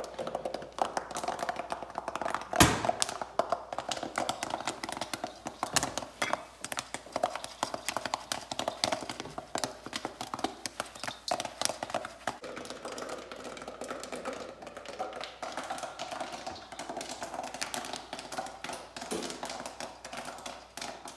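Freshly popped popcorn rattling in a stainless steel saucepan and tumbling into a stainless steel mixing bowl: a dense, uneven run of small taps and clicks, with one loud metal-on-metal knock about two and a half seconds in.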